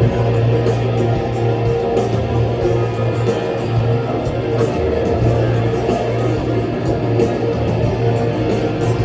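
A rock band playing a song, with strummed guitars over a steady low bass line.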